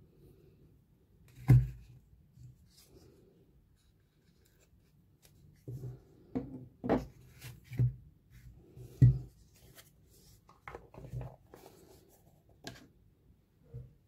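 Handling noises of a Zippo lighter and its box on a tabletop: scattered knocks and taps with light rubbing in between. The loudest knocks come about a second and a half in and about nine seconds in.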